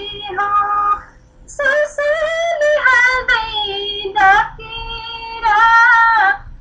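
A woman singing a Nepali song in a high voice, with long held, wavering notes and a short breath break about a second in.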